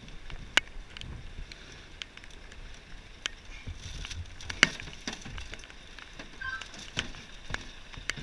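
Firefighting gear being handled in a fire engine's aluminium roof locker: irregular knocks and clicks as equipment is shifted and pulled out, the loudest a little past halfway.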